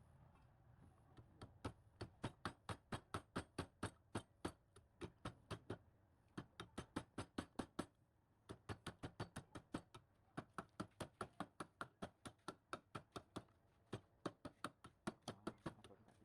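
A rapid, even series of sharp taps, about four or five a second, in several runs broken by short pauses.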